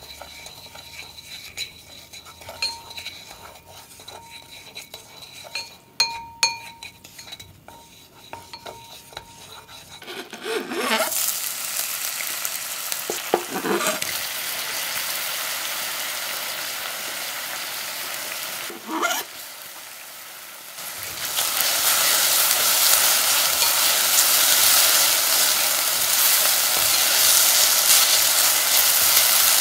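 Sugar caramelizing in a clay pot, stirred with chopsticks that click lightly against the pot. About ten seconds in, chopped ginger and shallots drop into the hot caramel and it starts sizzling loudly, with a few clatters of the chopsticks; the sizzle grows louder again about two-thirds of the way through as they are sautéed.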